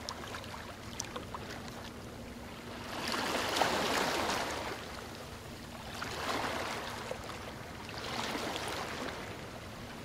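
Ocean surf: waves rushing in and breaking, swelling loudest about three to five seconds in and again more softly around six and eight seconds.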